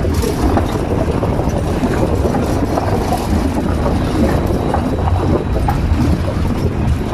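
Vehicle running along a rough, uneven road: steady engine and road noise with many small knocks and rattles from the jolting.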